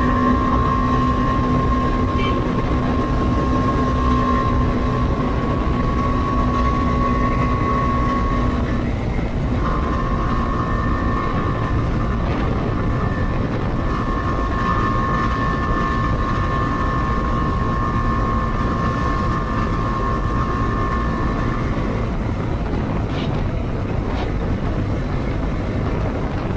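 Bajaj Dominar 250 motorcycle's single-cylinder engine through its stock exhaust, cruising at steady highway speed over constant wind and road rush. The engine note breaks briefly about nine seconds in, then carries on steady and fades into the rush near the end.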